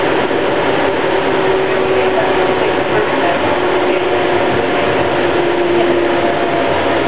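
Phoenix METRO light rail car running at speed, heard from inside the front cab: a steady rumble and rush of wheels on rail with faint steady hums in it.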